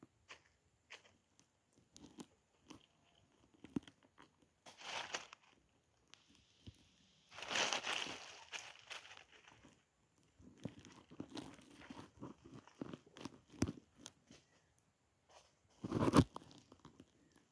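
Dry leaves crunching and rustling as a dog moves about in the leaf litter close to the microphone, with scattered small cracks and clicks. The busiest stretch comes about seven to nine seconds in, and a sharp thump, the loudest sound, comes near the end.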